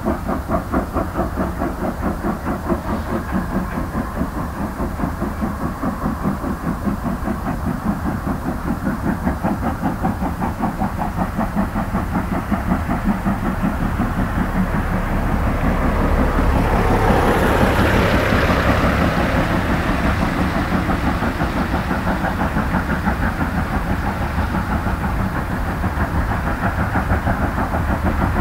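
Class 52 steam locomotive with a freight train running with a fast, even rhythmic beat. It grows louder toward a peak a little past the middle, with more hiss at that point, then eases slightly.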